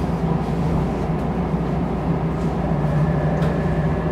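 Electric commuter train heard from inside the front car while stopped at the platform: a steady hum of its onboard electrical equipment. A faint, thin high whine joins about halfway through as the train gets ready to pull away.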